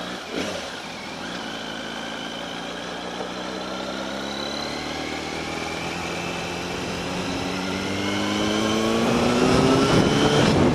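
Yamaha R1's inline-four engine pulling steadily under acceleration, its pitch climbing slowly as the revs rise and growing louder. Wind rush builds over the microphone near the end.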